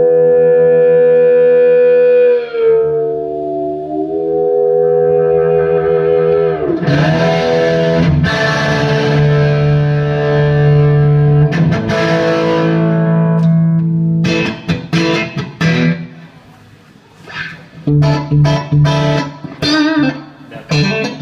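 Overdriven electric guitar played through a Bad Cat Siamese Drive pedal and amp. Held notes and chords with slow bends give way to short, choppy picked chords, with a brief quieter spell about two-thirds of the way in.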